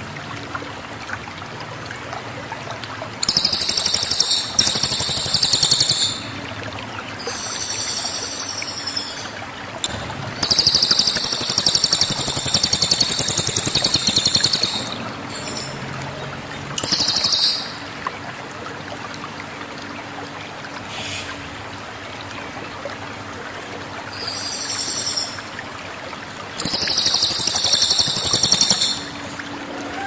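A caged cililin songbird from Sumatra singing in loud, shrill, rapid bursts of high song. Some bursts last several seconds and others only a moment, with pauses between them, over a steady hiss.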